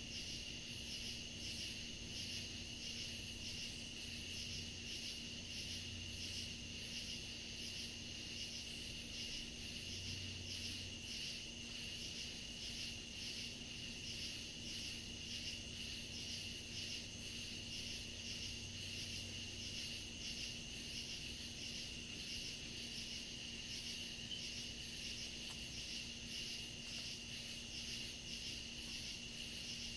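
Night chorus of crickets and other insects: a steady high trill with rapid, regularly repeating chirps layered over it. A faint steady low hum runs underneath.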